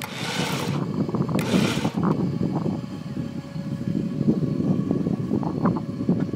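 Stuck center-pivot irrigation tower being pulled through deep mud on a cable: dense, rapid mechanical clicking and grinding, with two short hissing rushes in the first two seconds.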